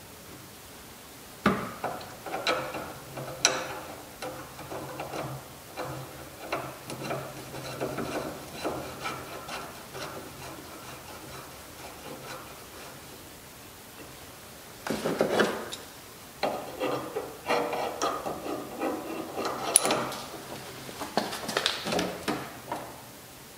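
Irregular metal clicks, knocks and rubbing as a DeadAir flash hider is handled and spun onto the threaded muzzle of an AR-10 barrel, starting with a sharp click about a second and a half in. In the last several seconds the clicks come thicker and sharper as the flash hider is cranked tight with a flash hider tool on a ratchet.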